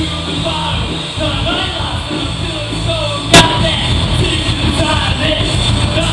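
Rock band playing live, with a sung vocal line over the instruments. A single sharp crack, the loudest sound, comes a little past halfway.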